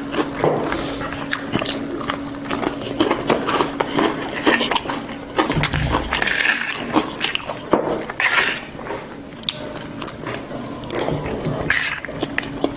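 Close-miked eating sounds: chewing and wet lip smacks on fried chicken and rice, with crispy breaded chicken torn by hand and a metal spoon scraping the plate. A steady low hum runs underneath.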